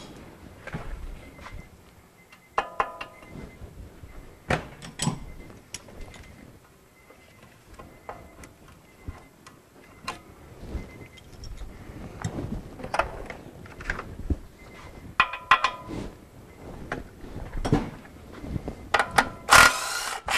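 Scattered clinks and taps of hand tools on the steel tie rod end and steering knuckle, a few ringing briefly. Near the end a DeWalt cordless power tool runs for about a second on the tie rod end's nut.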